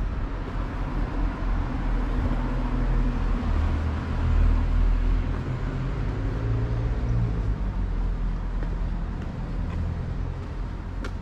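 Car engine running at low speed, a steady low hum over general street noise.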